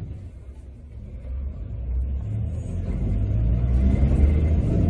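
Streetcar pulling away and accelerating: the low rumble of its motors and wheels on the rails builds steadily, growing louder through the whole stretch.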